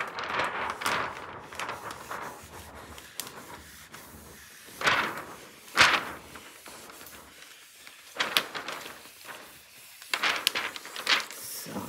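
Stiff clear plastic protective film of a diamond painting canvas rustling and crinkling as it is laid back down and pressed flat with a plastic scraper. Two loud swishes come about five and six seconds in, and crackling comes in short clusters near the end.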